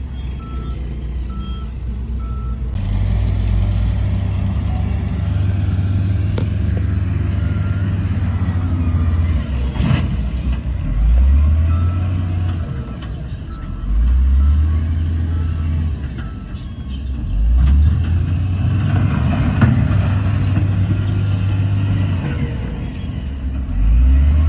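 Heavy diesel construction machinery running, its engines revving up several times, with a reversing alarm beeping at the start and again around the middle. There is a sharp knock about ten seconds in and another near the end.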